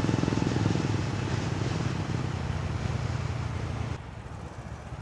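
Harley-Davidson X440's single-cylinder engine running as the motorcycle cruises along the road, with wind noise on the microphone. The engine eases off and gets quieter about four seconds in.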